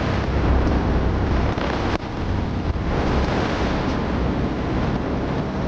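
Wind buffeting the microphone: a steady rushing noise with a heavy low rumble and a brief dip about two seconds in.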